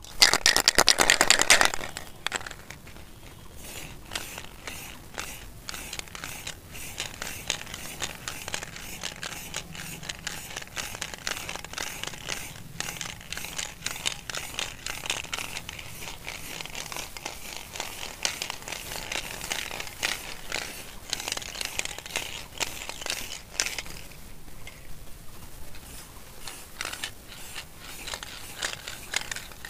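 Aerosol spray-paint can hissing as silver paint is sprayed onto a motorcycle engine in repeated straight passes, with small crackles and sputters. A louder burst comes in the first couple of seconds, and the hiss dips briefly about 24 seconds in.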